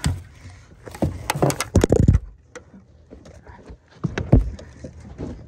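Irregular knocks, thumps and rattles of a netted fish and gear being handled in a small fishing boat. They are loudest in a cluster about two seconds in, with another heavy thump near four seconds.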